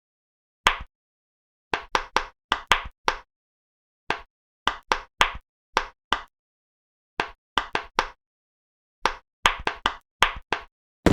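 Pop-it fidget toy bubbles popping, one short sharp pop after another in quick runs of several, with dead silence between the runs.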